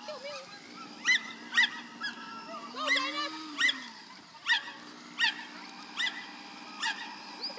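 A dog yelping again and again in shrill, high-pitched cries, about one a second, in excitement at the lure course. Underneath runs a steady low hum that rises and falls in pitch about three seconds in.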